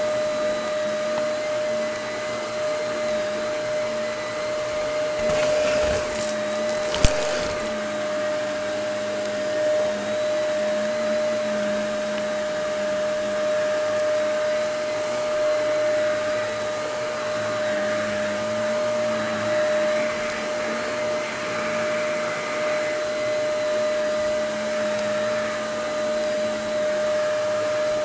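Bagless upright vacuum cleaner running steadily on carpet, its motor whining at a constant pitch. There is one sharp click about seven seconds in.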